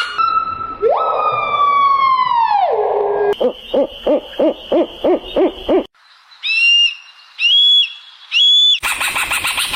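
A string of different animal calls cut one after another. First a long call sliding steadily downward, then a run of rapid pulsed hoots about four a second, then three short high calls. A new, louder, busier call starts just before the end.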